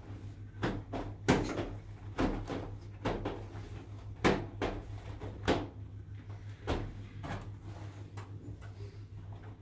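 Irregular sharp knocks and clacks from the panels and fittings of an accordion (folding) door being handled and adjusted during installation, the loudest a little over a second in and around the middle. A steady low hum runs underneath.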